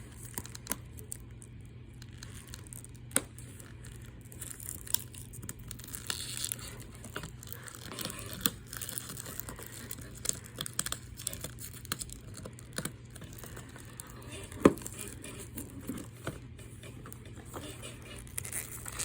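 Factory plastic shrink wrap being picked at and torn off a 4K disc case, crinkling and tearing with scattered sharp clicks. The loudest click comes about three quarters of the way through.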